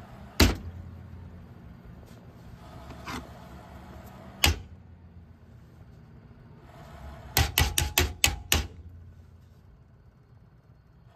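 Cheap Apevia computer case fan running with a low hum, the owner says failing and growling since it was cleaned, broken by loud sharp clacks: one about half a second in, another about four and a half seconds in, and a quick run of about seven near eight seconds.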